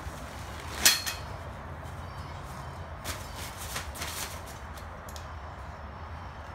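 Collapsed nylon dome tent and plastic groundsheet being pulled across concrete: one loud, sharp crackle about a second in, then softer crinkling about three to four seconds in, over a steady low background hum.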